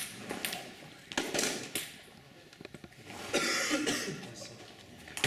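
A few short coughs, with some faint taps in between.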